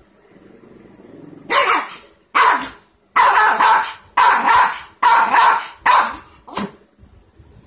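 Small dog growling low at first, then barking repeatedly: a run of about eight loud barks, roughly two a second, starting about a second and a half in.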